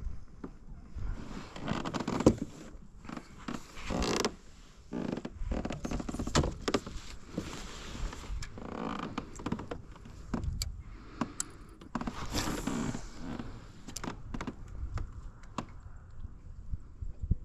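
Fishing rods and tackle being handled in a kayak: irregular knocks, clicks and creaks.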